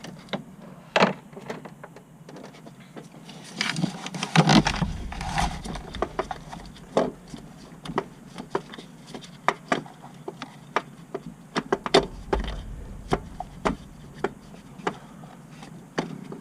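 Hand tools and parts knocking and clicking at irregular moments while the cable nut and cable are taken off a car's starter motor, with a busier patch of handling about four seconds in.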